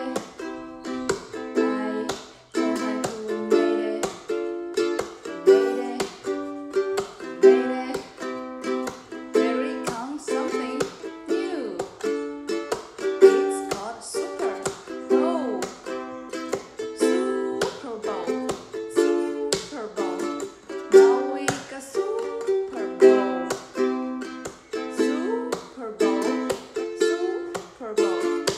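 Ukulele strummed in a steady chord rhythm, with a woman singing along.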